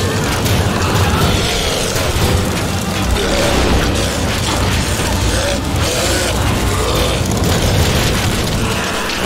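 Loud, dense radio-drama sound effects: a continuous low rumble with booms and mechanical clanking, mixed with music.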